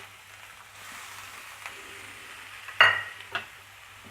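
Shredded carrot frying in ghee in a pan with a soft, steady sizzle while being stirred. A sharp clack of the stirring utensil against the pan comes near three seconds in, with a smaller knock just after.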